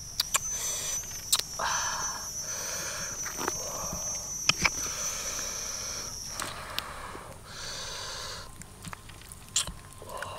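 Hands handling and tearing apart a boiled whole chicken, with sharp clicks and wet rustling. A steady high-pitched whine runs beneath and stops about six seconds in.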